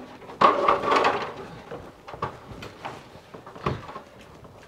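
Cable stapler clacking as twin-and-earth cable is stapled along a thermalite block wall: several separate sharp clicks roughly a second apart, after a louder spell of knocking and handling noise near the start.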